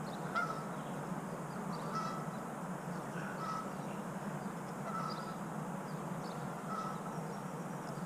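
A goose honking repeatedly, one short call about every second and a half, over steady background noise.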